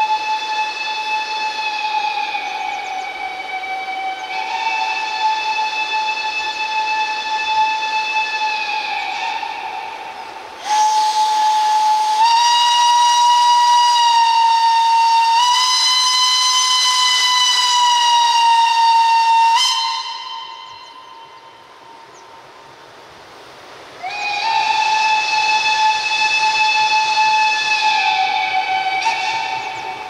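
Narrow-gauge steam locomotive's whistle blowing long blasts, the middle one the loudest and longest. After a pause of about four seconds, it blows one more blast. Steam hisses under the whistle.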